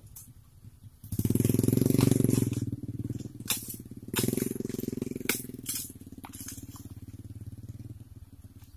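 Small pickup truck's engine labouring in thick mud, revving hard about a second in and again a few seconds later, with scattered sharp clicks and knocks.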